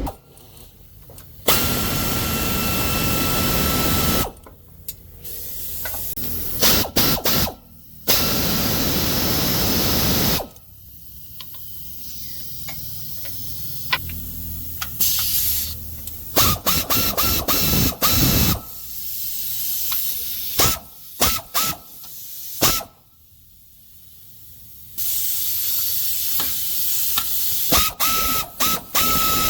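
Power tool running in repeated bursts of a few seconds, with a steady whine and a hiss, and runs of quick short trigger pulls in between.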